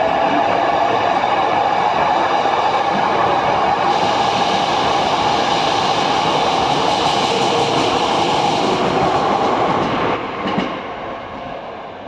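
Hankyu 9300 series electric train running along the platform: steady wheel and running noise with a motor whine held in the first few seconds, dropping off sharply about ten seconds in and then fading.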